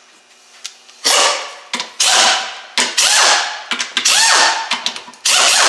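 Hand ratchet wrench clicking as bolts on a transmission valve body are loosened, in about five separate strokes with a brief metallic ring near the middle.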